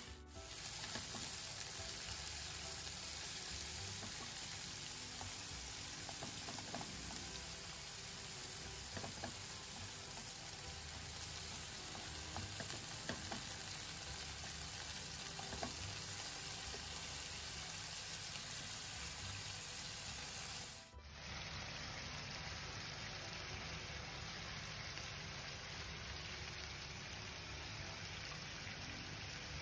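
Thin strips of beef sizzling steadily in hot oil in a frying pan, stirred now and then with a wooden spatula. The sizzle breaks off for a moment about two-thirds of the way through, then carries on.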